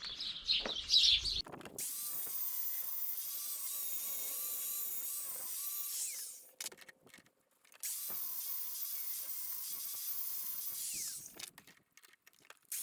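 Electric grinder running on metal in two runs of about four to five seconds each, a steady high-pitched grinding hiss with a short break between. Birds chirp briefly at the start.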